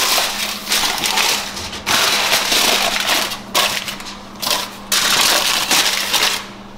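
Aluminium foil crinkling in a series of crackly bursts as it is pressed and crimped by hand around a pot lid to seal the pot.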